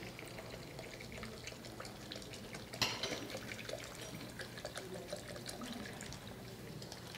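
Drinking water poured from a plastic bottle into a blender jar: a faint running trickle and splash with small ticks, and one sharper click about three seconds in.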